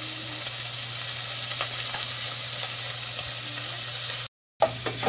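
Diced pork with garlic and onion sizzling steadily in oil in a stainless-steel pot. The sound cuts out for a moment near the end, and a few light knocks follow.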